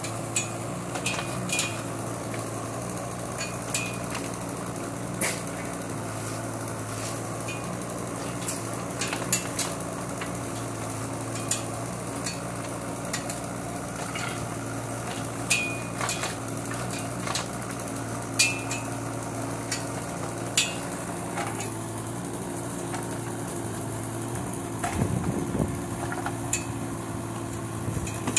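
Kubota K008-3 mini excavator's small three-cylinder diesel running steadily under hydraulic load while the bucket digs out bushes. Scattered sharp clicks and clanks come every second or two, from the bucket and snapping brush.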